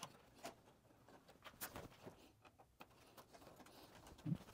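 Near silence, with a few faint clicks and taps as stitching wire is handled with pliers against thin plywood kayak panels.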